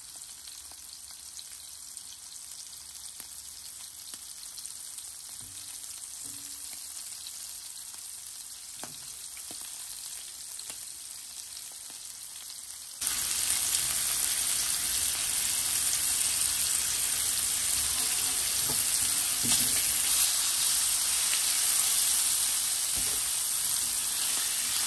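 Seasoned shrimp frying in hot oil in a pan, a steady sizzle with a few light knocks in the first half. About halfway through, the sizzle abruptly gets much louder and stays so.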